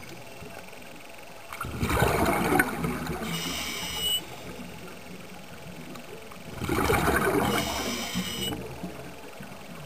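Scuba regulator breathing heard underwater: two breaths about five seconds apart, each a loud rush of bubbling with a brief high whistle near its end, over a steady faint hiss.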